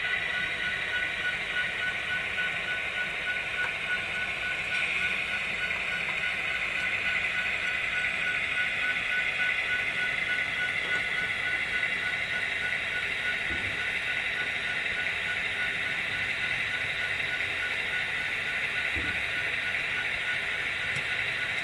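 Model trains running on a layout: a steady whirring hiss of small locomotive motors and wheels rolling on the rails.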